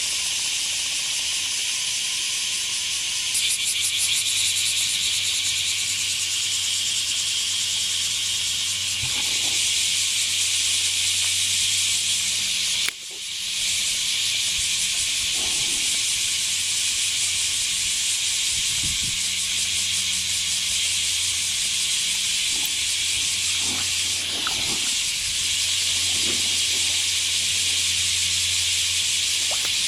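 Chorus of bear cicadas (kumazemi) calling, a loud, steady, dense buzz with a brief break about halfway through.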